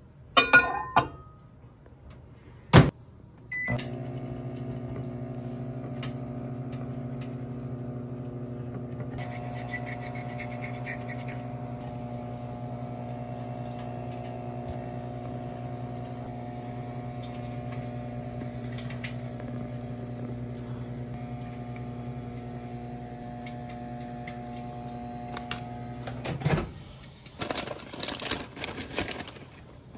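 A click, then a microwave oven runs with a steady hum for about twenty-two seconds and stops suddenly, followed by a knock and a clatter.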